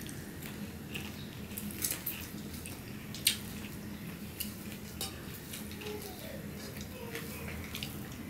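Hands mixing rice and curry on plates while eating, with scattered light clicks and taps against the plates and one sharper click a little over three seconds in.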